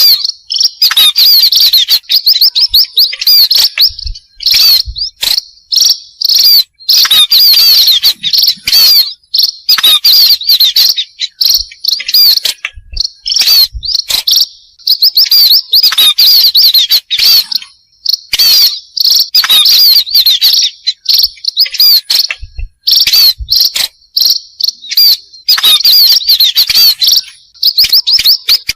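Burung pipit (small seed-eating birds) giving a dense chorus of rapid, high chirps in loud runs with brief pauses: a lure recording meant to draw pipits in.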